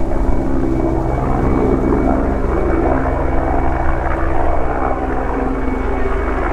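Mil Mi-24 Hind attack helicopter flying a display pass: a steady rapid beat from the main rotor together with the hum and high whine of its twin turboshaft engines.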